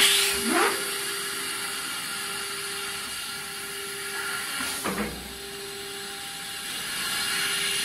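CNC router's automatic panel-loading system at work: a burst of compressed-air hiss at the start, then a steady machine hum, with short rising motor whines about half a second in and again near five seconds as the suction-cup gantry moves a particleboard panel.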